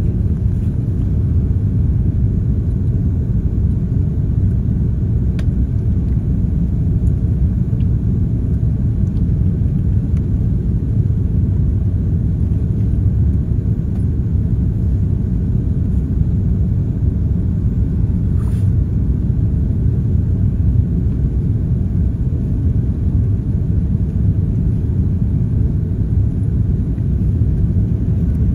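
Airliner cabin noise on final approach: a steady low rumble of engines and rushing air heard from a window seat, with a couple of faint clicks.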